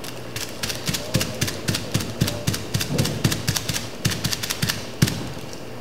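Rapid light tapping of a folded wad of metallic transfer foil being dabbed onto the print, about five taps a second. This is the 'batidinho' tapping that presses the foil onto the tacky clear plastisol adhesive so the metallic film transfers. The tapping stops shortly before the end.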